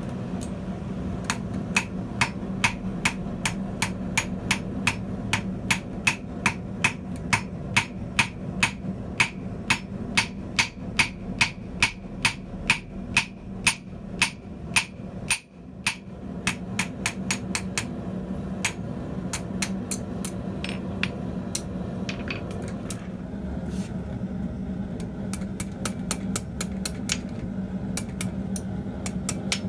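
Hand hammer forging a hot steel bar on a steel anvil block, a steady run of ringing blows at about two to three a second. After a brief break about halfway through, the blows come lighter and more scattered.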